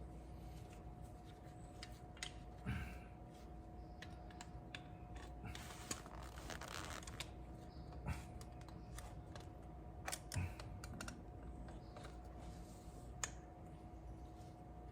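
Scattered light clicks and knocks of hand tools and brake caliper parts being handled, with a brief rubbing sound about six seconds in, over a steady faint hum.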